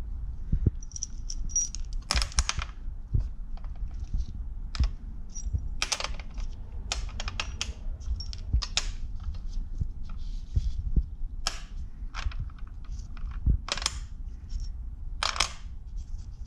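Metal car parts and bolts being handled and set down on a scale: irregular clicks, clinks and knocks with a few short rustles, over a low steady hum.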